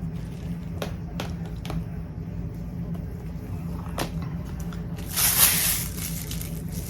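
Handling of plastic bead-kit packaging: a few light clicks and taps, then a brief crinkling rustle about five seconds in, over a steady low hum.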